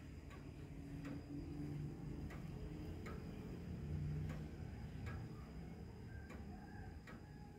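Pendulum escapement of a weight-driven Junghans grandfather clock ticking steadily, about one sharp tick every three quarters of a second.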